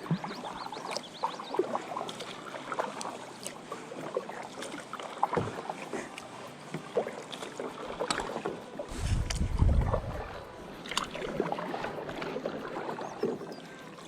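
Kayak being paddled: paddle blades splashing and dripping in the water, with scattered light knocks and clicks, and a brief low rumble about nine seconds in.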